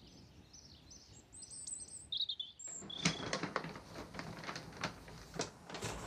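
Small birds singing in short, repeated high notes. A little under halfway through, this gives way to the crackling and rustling of a large folded paper map being opened out.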